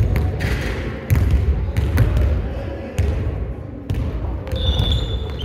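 Basketball being dribbled on a gym floor, one hard bounce about every second, each with a low echoing thump. A short high-pitched tone sounds just before the end.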